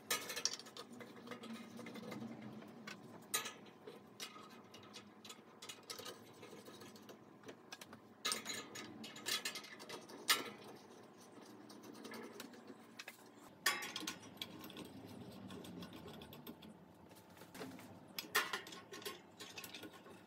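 E26 glass filament light bulbs being screwed into a light fixture's sockets by hand: faint scraping and small clicks, with a few sharper clicks about 3, 8, 10, 14 and 18 seconds in.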